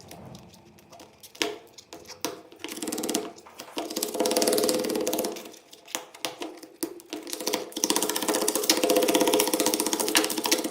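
A small machine running with fast, even ticking, in two runs with a short break between, after a few scattered clicks.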